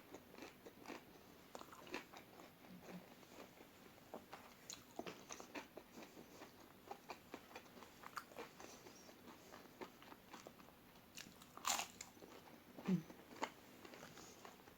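Close-up mouth sounds of someone chewing crispy fried food: a steady run of small wet clicks and soft crunches, with two louder crisp bites near the end.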